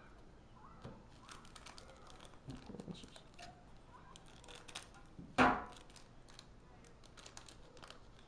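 Trading cards being flipped through by hand: soft rustles and small clicks as cards slide over one another, with one louder short sound about five seconds in.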